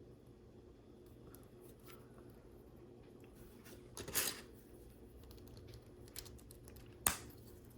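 Plastic LEGO pieces being handled and pressed together: faint small clicks, a brief rustle about four seconds in, and a sharper click near the end.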